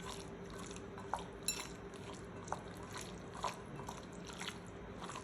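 Cut chicken pieces being mixed with spice powders and ginger-garlic paste in a bowl: light wet squelching with scattered small clicks against the bowl, over a faint steady hum.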